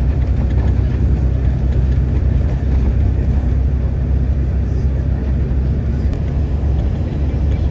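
Steady low rumble of road and engine noise from a car being driven, heard from inside the moving car.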